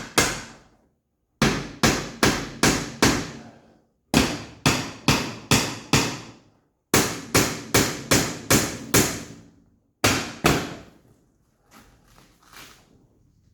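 Hammer blows on a chisel against the Jeep soft-top door's bent metal frame, tapping it into shape. The strikes come in quick runs of five to seven, about three a second, each ringing briefly, with a few fainter knocks near the end.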